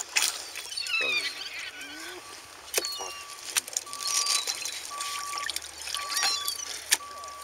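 Water sloshing and dripping in a plastic tub as gloved hands move fresh-caught fish about in it, with scattered sharp clicks of fish and plastic being handled.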